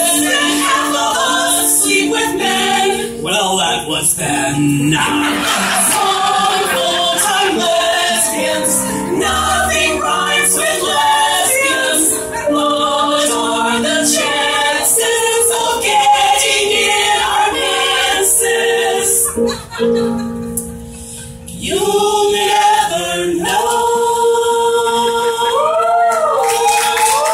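A mixed-voice choir singing a song in harmony. The sound drops briefly about twenty seconds in, then comes back with long held notes toward the end.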